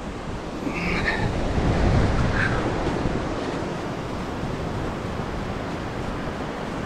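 Surf washing onto a beach, with wind on the microphone; the wash swells louder about a second in and then eases to a steady level.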